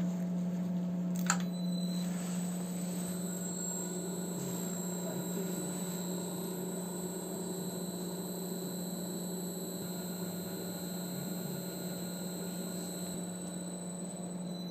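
Benchtop centrifugal (planetary) mixer running steadily at 1800 rpm with its vacuum pump switched off: a constant motor hum, with a short click about a second in, after which a steady high whine joins.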